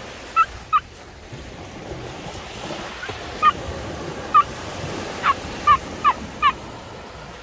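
A bird giving about eight short, sharp calls, spaced unevenly, over the steady wash of surf.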